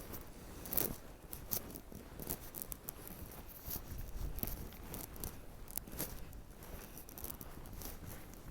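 Footsteps crunching in snow, uneven and irregular, with a couple of sharper crunches about a second in.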